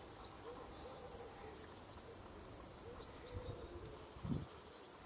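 Faint distant birdsong: repeated short, low hooting or cooing notes with thin high chirps behind them. A brief low thump comes about four seconds in.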